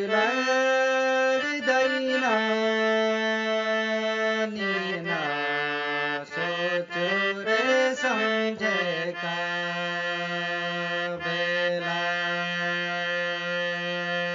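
Harmonium playing a slow, drawn-out Nepali thadi bhaka folk tune, its reedy notes changing in slides before settling on one long held note about nine seconds in.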